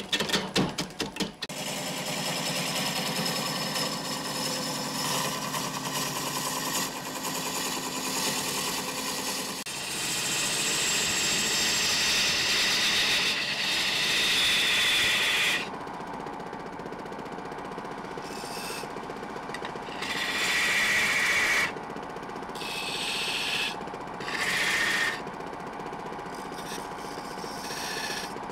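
Harbor Freight roughing gouge cutting the bark off a mesquite log spinning on a wood lathe, chips flying, with a burst of rapid knocks at the start. After about fifteen seconds the cutting comes in short spells with quieter pauses between.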